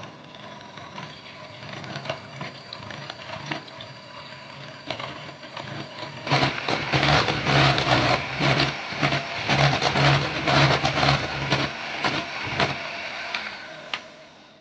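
Electric kitchen mixer motor running with a steady hum, joined by loud irregular rattling and scraping from about six seconds in that fades out near the end.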